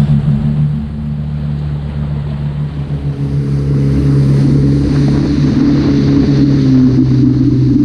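Yamaha WaveRunner FX Cruiser HO personal watercraft running under way, its engine steady with water and wind noise. It eases off about a second in and picks up speed again from about three seconds in.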